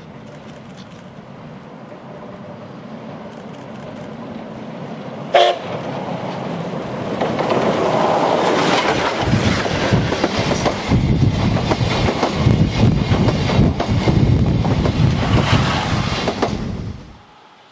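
D51 498 steam locomotive approaching and passing at speed: a short blast of its steam whistle about five seconds in, then loud exhaust chuffing and wheel and rail clatter as the train goes by. The sound cuts off suddenly near the end.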